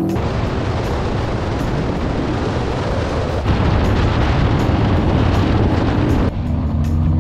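Harley-Davidson Low Rider S at road speed: wind rushing hard over the microphone with the V-twin engine running underneath. About six seconds in the wind noise eases and background music comes back in.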